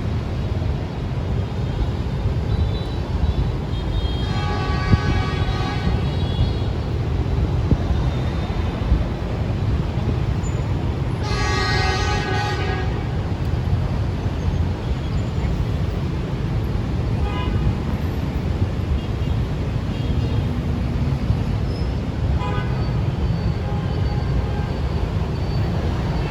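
EM120 locomotive running light past, its engine and wheels making a steady low rumble, with two horn blasts of about two seconds each, the first around four seconds in and the second about seven seconds later, sounded as a greeting.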